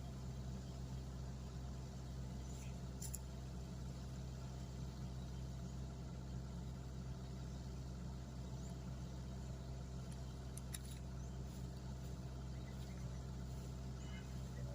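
Mini excavator's engine running steadily with an even low hum.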